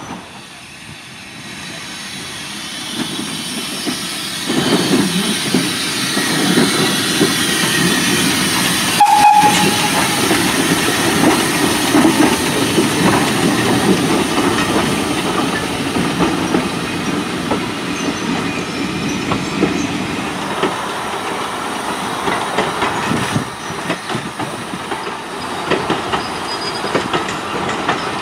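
Steam tank locomotive NER No. 1310, an 0-4-0T, working a train past: chuffing and steam hiss that swell up about four seconds in, with the carriage wheels clicking over the rail joints. A brief high-pitched squeak sounds about nine seconds in.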